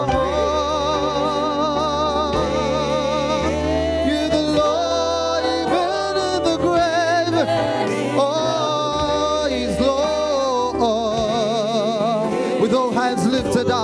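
Gospel worship song: a voice holding long, wavering notes with vibrato over instrumental backing with sustained bass notes.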